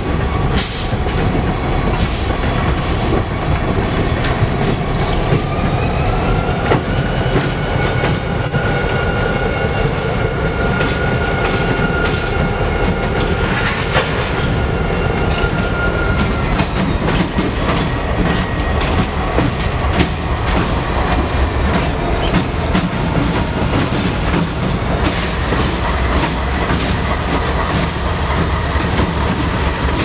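EMD SD40-2 and SD50 diesel freight locomotives and freight cars rolling past close by: a heavy diesel rumble with wheels clicking over the rail joints. A high whine rises in pitch about six seconds in and fades out around seventeen seconds.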